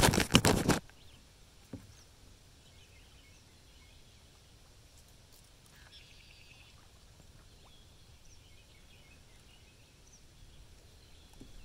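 A short burst of loud crackling noise in the first second, then a quiet outdoor background with faint short bird calls around the middle.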